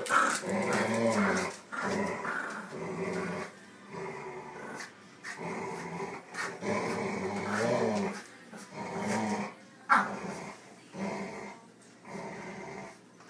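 A French bulldog puppy and a long-haired dog growling in play as they tug a plush toy between them, in a string of growls about a second each: play growling that is part of the game, not aggression. A single sharp knock stands out about ten seconds in.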